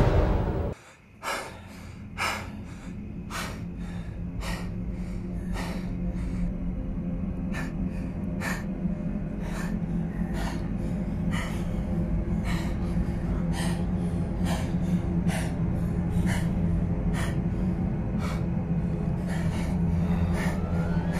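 A person breathing hard and fast, about two sharp breaths a second, over a low steady drone that slowly grows louder.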